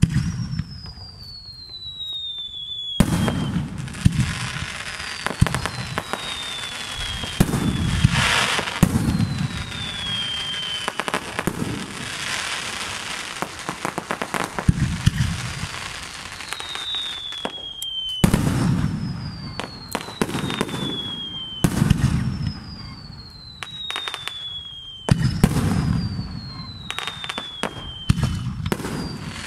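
Fireworks display: aerial shells bursting with deep booms and sharp cracking reports. About every two to three seconds a high whistle sounds and falls steadily in pitch over a second or two.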